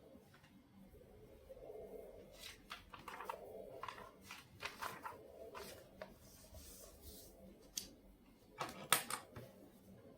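A scattered series of short rustles and clicks of things being handled at a desk, with the loudest cluster near the end.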